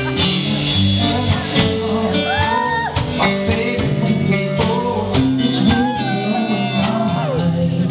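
Live band playing: a male lead singer over acoustic guitar, electric bass and drums.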